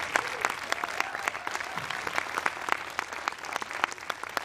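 Audience applause: many hands clapping together, steady and thinning a little toward the end.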